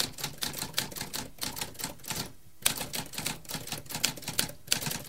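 Typewriter keys being struck in quick, uneven runs of keystrokes, with a short pause about two and a half seconds in followed by one louder strike.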